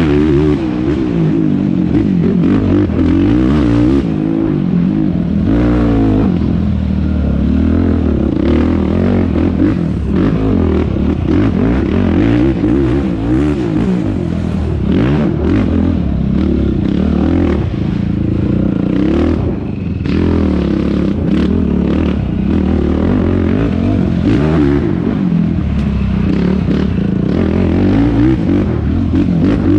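2019 Yamaha YFZ450R quad's single-cylinder four-stroke engine revving up and down continuously under race load, with scattered knocks and clatter from the rough ground.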